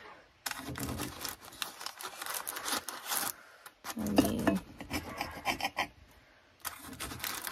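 Knife sawing back and forth through the crust of a freshly baked loaf of avocado bread, in three spells of rasping strokes with short pauses between.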